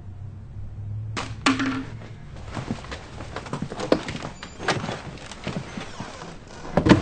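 A door pushed open, with a run of knocks, thumps and scuffles and a short loud burst near the end.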